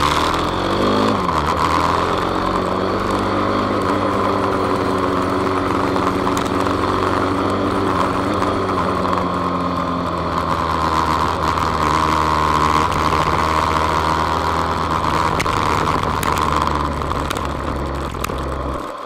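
Kawasaki KSR110's single-cylinder engine, bored to 185cc with a four-valve head, running under load with wind noise on the onboard microphone. The revs dip and climb again in the first two seconds as it shifts, then hold steady through the corners, and the engine falls away near the end as the bike slows.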